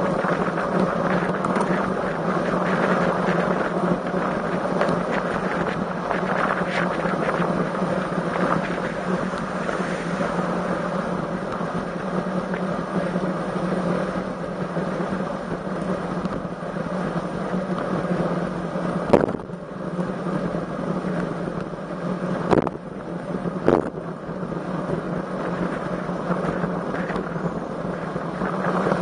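Steady wind and riding noise rushing over the microphone of a camera on a moving road bicycle, with a constant low hum underneath. Three sharp knocks come about two-thirds of the way through.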